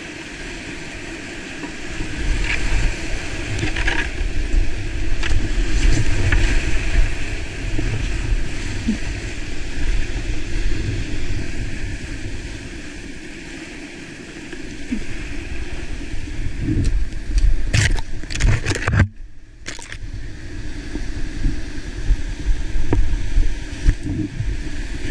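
Whitewater of a steep creek rapid rushing and churning close to a helmet-mounted camera, with a heavy low rumble of water and wind buffeting the microphone. Near the end a quick run of sharp splashes, then the sound goes dull for about a second before the rush returns.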